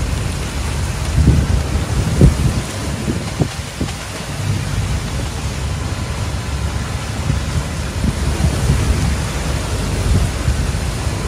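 Wind buffeting the microphone in gusts over a steady rush of sea and water along the hull of a sailboat under way. The strongest gusts come about one and two seconds in.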